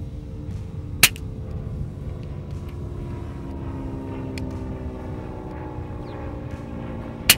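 Two sharp shots from a suppressed FX Impact PCP air rifle, about six seconds apart, fired during a zero check, over a steady low rumble.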